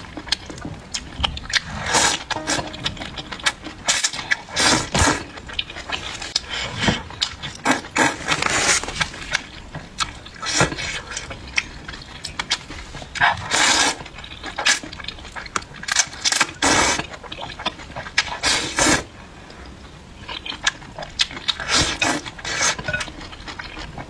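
Close-up slurping of rice noodles (mixian) in spicy broth, in repeated bursts of up to about a second, with quieter mouth and chewing sounds between.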